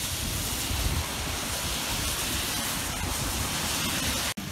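Steady hiss of rain falling, mixed with the swish and rumble of cars driving on a wet road. The sound drops out for an instant near the end.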